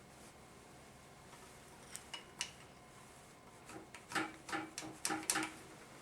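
Metal hand tools and transmission parts clinking and tapping against each other: two light clinks about two seconds in, then a quicker run of about six sharper, slightly ringing clinks near the end.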